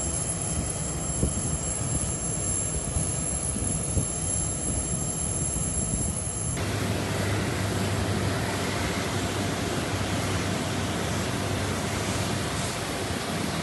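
Steady aircraft turbine engine noise with a thin high whine over it. About six and a half seconds in the sound changes abruptly to a broader, even rush with a low hum underneath.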